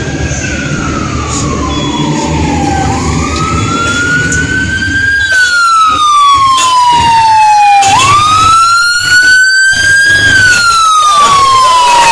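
Police siren wailing, its pitch rising and falling slowly about every five seconds, growing louder as it approaches, over the rumble of vehicle engines.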